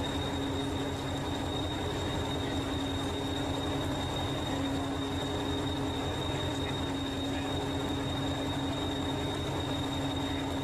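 Hastings diesel-electric multiple unit 1001 standing with its English Electric diesel engine idling: a steady low hum with a thin high whine over it.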